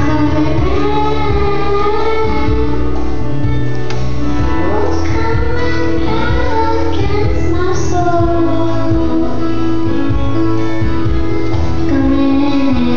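Group of children singing a song with a steady instrumental accompaniment underneath, amplified through stage microphones.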